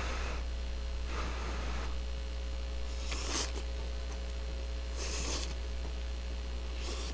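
Cup ramen noodles slurped up with chopsticks: five short slurps one to two seconds apart, over a steady electrical hum.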